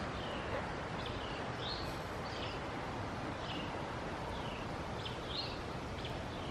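Small birds chirping outdoors: about a dozen short, high chirps, many dropping in pitch, spaced irregularly over a steady background hiss.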